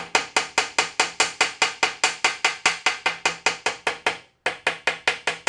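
Rapid, even hammer taps on a metal ring, about five a second, with a brief pause near the end. The ring is being driven down into the register of a carousel bearing housing to seat it against a partly worn-away lip.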